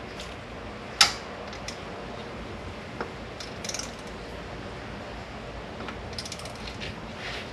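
Hand ratchet or torque wrench clicking in short runs while 10 mm intake manifold fasteners are run down to the first-pass torque, with one sharp metallic click about a second in.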